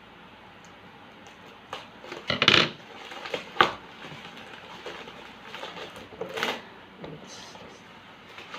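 Boxes and packaging being handled during unboxing: scattered knocks and rustles, the loudest about two and a half seconds in and a sharp knock about a second later.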